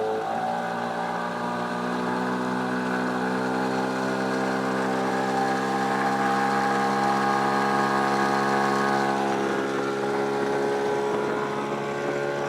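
Nissan 9.8-horsepower outboard motor pushing a small bass boat at full throttle. Its drone shifts up about a quarter-second in and then climbs slowly as the boat accelerates toward planing.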